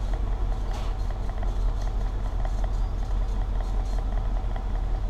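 Pickup truck engine idling steadily, heard from inside the cab: a constant low hum with a fine, even ticking running through it.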